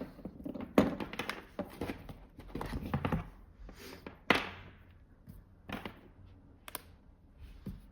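Handling noise from a charging cable and plugs being connected: a run of sharp clicks and knocks, the loudest about one second in and about four seconds in, then lighter taps.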